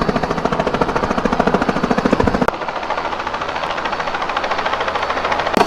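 Helicopter rotor beating in a fast, steady chop as the helicopter comes in to land. The sound drops and changes abruptly about halfway through.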